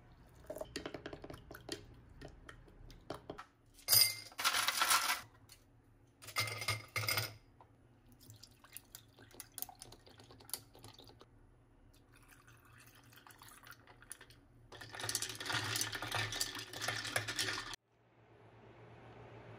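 Making an iced drink with glassware: clinks of glass and a stirrer in a glass carafe, ice cubes rattling in a drinking glass, and liquid poured over ice. It comes in a few separate bursts, the loudest about four seconds in, and a longer one near the end that cuts off suddenly.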